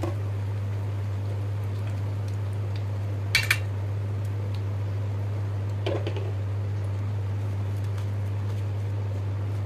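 A wire spider strainer clinking twice in quick succession against the metal frying pan, then a duller knock a couple of seconds later, over a steady low hum.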